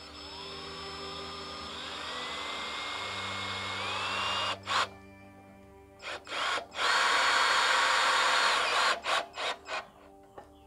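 Cordless drill-driver driving a screw into a wooden board. The motor whine rises in steps over the first four seconds, then comes in short trigger bursts, a steady run of about two seconds, and a quick string of short pulses near the end.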